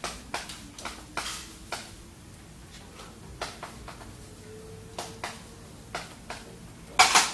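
Chalk writing on a chalkboard: short taps and scrapes at irregular intervals as characters are written, with a louder sharp sound near the end.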